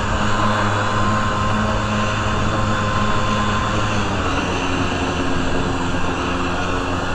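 Kawasaki JS440 stand-up jet ski's two-stroke twin engine running steadily under way, with a steady rush of wind and water over it. Its note shifts slightly about halfway through.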